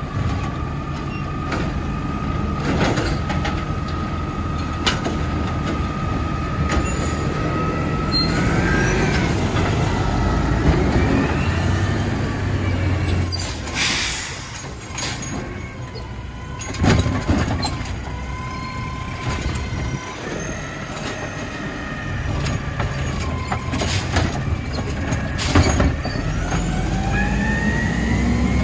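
Natural-gas automated side-loader garbage truck working at the curb: engine running with a steady high whine, and several sharp air-brake hisses, the loudest about halfway through and again near the end.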